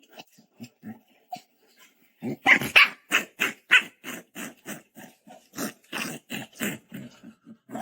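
Puppy barking in a rapid series of short barks, about three a second, faint at first and much louder from about two seconds in.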